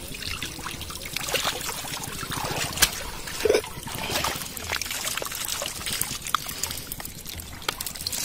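Water dripping and trickling off a split-bamboo fish trap lifted out of shallow water, with scattered light clicks and knocks as the trap is handled and the catch is tipped into a basket.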